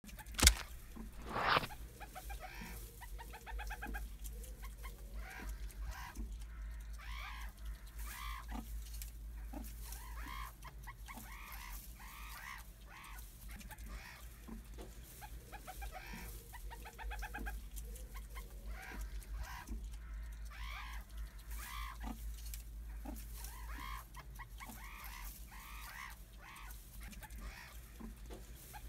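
Meerkats chirping and peeping in many short, repeated calls, some as rapid trills, over a steady low hum. A brief thump and a short tone open the clip.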